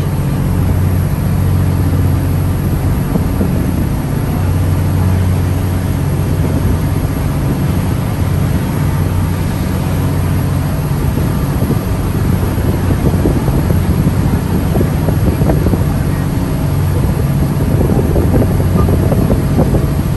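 Sightseeing ferry's engine running steadily as a low drone, with wind buffeting the microphone and water rushing past the hull.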